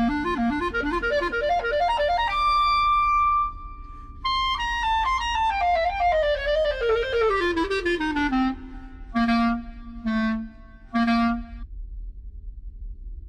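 Solo instrumental music. A quick rising run leads up to a held high note, then a long falling run, then three short low notes, after which only a faint low hum remains.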